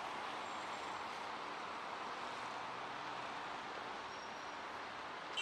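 Road traffic: cars driving along the street, a steady wash of tyre and engine noise that eases slightly near the end.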